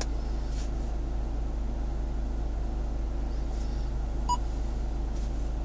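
Steady low hum of a car interior with the vehicle switched on, and one short electronic key beep from the Erisin ES1068V head unit's touchscreen about four seconds in, as a menu button is pressed.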